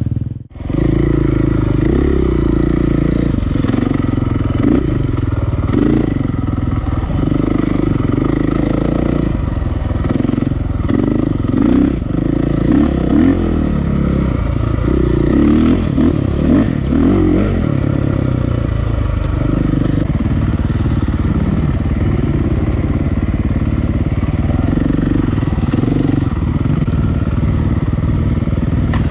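KTM EXC enduro dirt bike's single-cylinder four-stroke engine heard from on board, running at low revs with the throttle opening and closing as it picks its way along rough single track. Its pitch keeps rising and falling.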